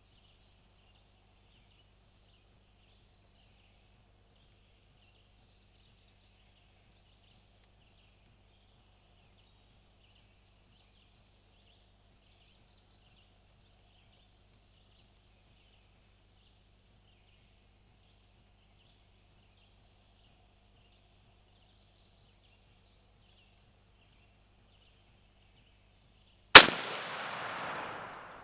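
A single loud shotgun shot near the end, its report echoing and dying away over about a second and a half. Before it, only faint insects chirping and a few birds calling in the woods.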